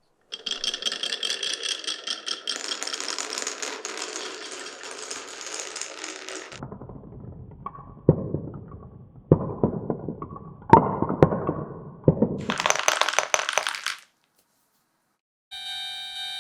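Glass marbles running down a toy marble run: a dense rattling clatter for about six seconds, then a lower rolling rumble broken by five or six sharp clacks as marbles drop onto the pieces, and a brief high rattle before a pause. Near the end a steady electronic tone begins.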